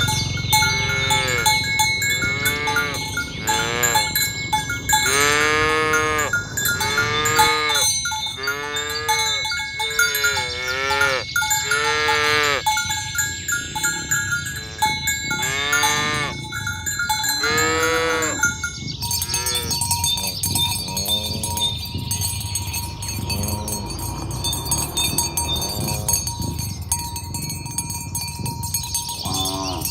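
A herd of cattle mooing over and over, with cowbells ringing underneath. The calls come about once a second, then thin out and grow fainter about two-thirds of the way through.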